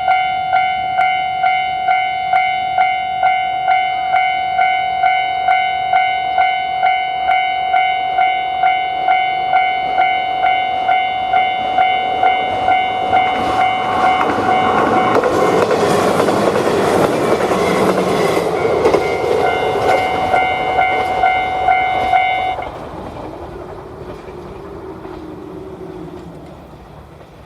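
Japanese level-crossing electronic warning bell ringing, about three strikes every two seconds. A train passes over the crossing from about halfway through, its wheels clicking over the rails. The bell stops a few seconds before the end and the train sound fades away.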